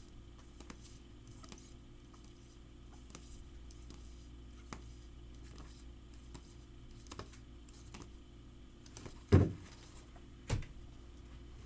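Faint clicks and light rubbing of trading cards being handled and sorted, with two louder thumps about a second apart near the end.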